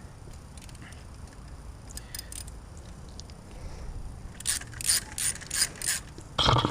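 Ratchet wrench with a 10 mm socket clicking as a bolt is turned: faint clicks at first, then a quick run of sharper ratchet clicks starting about four and a half seconds in.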